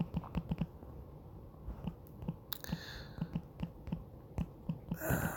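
Fingertips tapping on a phone's touchscreen keyboard while typing, a run of soft, dull taps at an uneven pace. A short rushing noise comes near the end.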